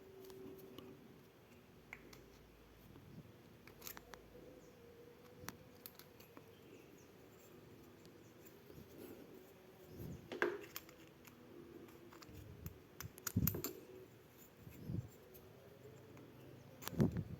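Faint metallic clicks and short scrapes of hand work fitting the piston-pin circlip and piston rings on a Yamaha Vega ZR piston, with the loudest clicks about ten, thirteen and seventeen seconds in, over a faint steady hum.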